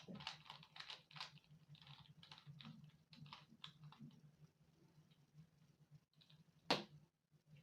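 Plastic Rubik's Cube layers being turned by hand: a run of quick, faint clicks and clacks, with one louder click near the end.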